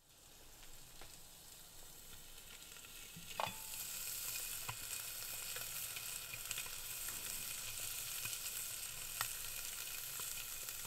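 Spiced carp pieces on an oiled tray sizzling inside a very hot charcoal-fired tandoor oven: a steady frying hiss that swells over the first few seconds, with a few sharp pops and crackles scattered through it.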